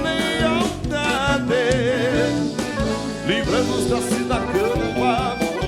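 Southern Brazilian gaúcho regional music played live by a band, with accordion-led instrumental playing.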